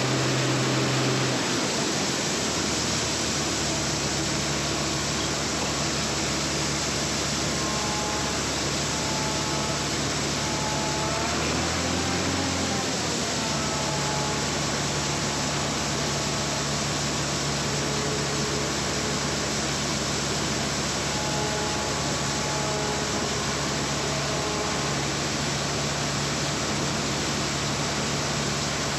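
Farm machine's diesel engine running steadily under a constant rush of air-like noise, as heard in a tractor or combine cab, with a brief shift in engine pitch about twelve seconds in.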